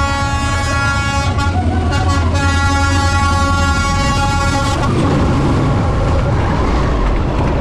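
Diesel train passing close by on the street-side track, blowing its horn in three blasts, the last one long, over a heavy low rumble. After the horn stops, about five seconds in, the roar of the locomotive and wheels carries on.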